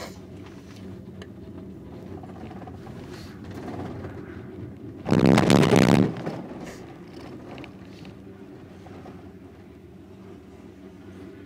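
Inside a moving gondola-lift cabin: a steady low hum from the running haul rope, then about five seconds in a loud rumble lasting about a second as the cabin's grip passes over a support tower's sheave rollers.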